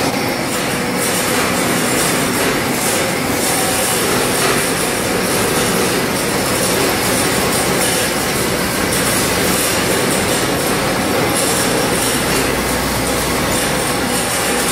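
PVC wire-coating extrusion line running: a loud, steady mechanical din with a faint constant whine in it.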